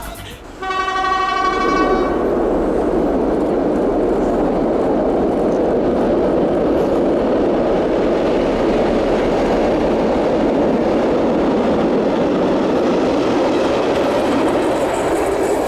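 An SU45 diesel locomotive's horn sounds one blast of about a second and a half, followed by the steady rumble of the train running past.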